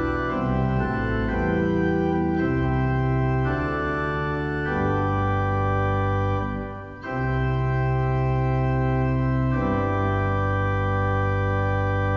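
Organ music: sustained organ chords changing every second or two, with a short break between phrases about seven seconds in.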